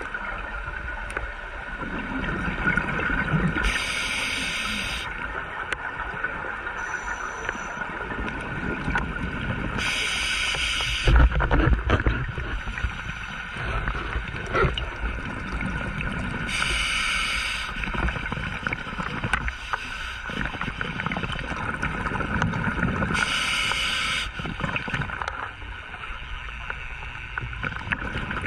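Scuba diver's regulator breathing underwater: four bursts of exhaled bubbles, each about a second long and spaced about six to seven seconds apart, over a steady underwater rumble, with a single knock about eleven seconds in.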